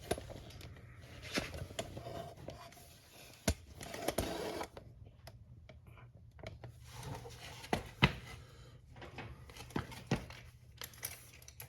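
Scattered light clicks, taps and rustles of hands working with tools and metal parts, the sharpest knocks about three and a half and eight seconds in, over a faint steady low hum.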